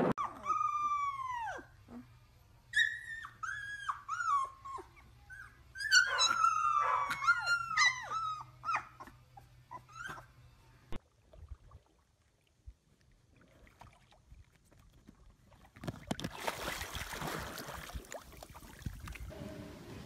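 Young puppies howling and whimpering: a string of high, thin cries that slide down in pitch, lasting about ten seconds. A few seconds of hissing noise follow near the end.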